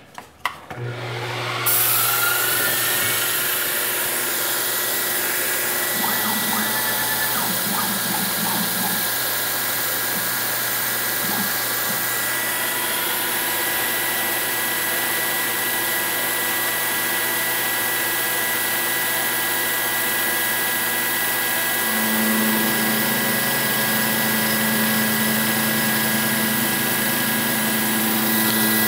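Milling machine spindle starting up with a short rising whine, then running steadily over a steady hiss as a 3/8-inch powdered-metal roughing end mill cuts a flat on the end of a steel part. About 22 seconds in, a second steady low hum joins as the cut goes on.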